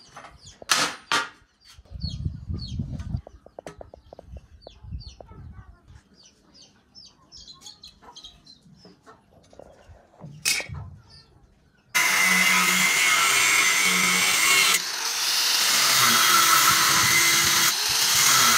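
Two sharp hammer blows on steel about a second in and another about ten seconds in; then, about twelve seconds in, an electric angle grinder starts up and runs steadily, cutting into a steel bar clamped in a vise, its pitch dipping briefly under load partway through.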